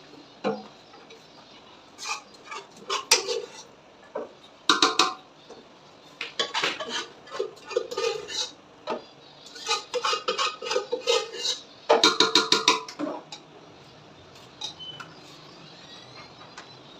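Metal utensil clanking and scraping against a large cooking pot in several bursts, with a fast run of clinks about twelve seconds in.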